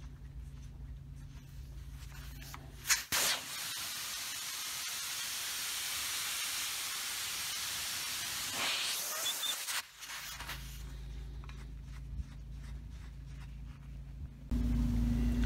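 Air hissing out of a farm sprayer's tyre valve for about seven seconds as the tyre is let down from 1.6 bar toward about 0.7 bar, starting with a sharp burst and cutting off suddenly.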